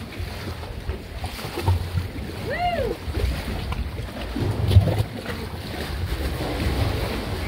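Wind buffeting the microphone over water lapping, heard from a small boat paddling close beside sandstone sea caves. About two and a half seconds in there is a short rising-then-falling pitched call, and a louder bump a little past halfway.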